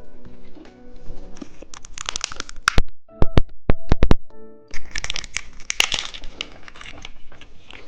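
Plastic candy wrapper being torn open and crinkled, with a quick run of sharp, loud clicks midway and a second longer spell of crinkling after it. Background music plays at the start.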